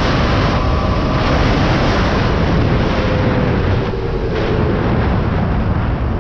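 Heavy wind rushing over the microphone while riding an electric-converted Yamaha YZ250 dirt bike flat out at about 55 mph. The tyres and drive add to the noise, and a faint whine sags a little in pitch about halfway through.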